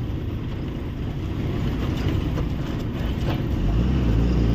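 Truck's diesel engine heard from inside the cab, running with a low rumble under way. About three and a half seconds in, the engine note steadies into a deeper hum and grows louder.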